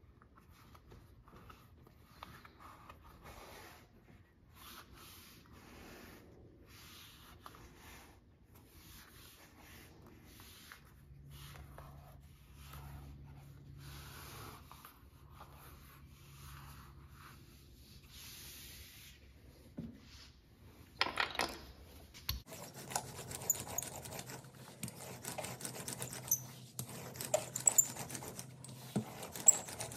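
Hands rubbing and smoothing a vegetable-tanned leather backing strip down onto a latigo belt strap in soft, uneven strokes. About two-thirds of the way in it turns louder, with a dense crackling and ticking as a steel hand roller is pressed along the layered leather.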